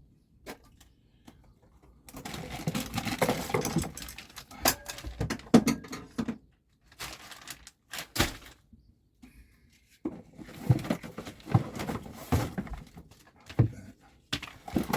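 Rummaging in a cluttered storage locker: assorted loose items being lifted out and set down, with knocks, rattles and rustling in several spells separated by short pauses.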